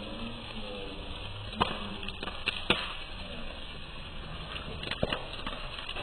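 A pile of dry leaves burning, crackling continuously with a few sharp pops, the loudest nearly three seconds in.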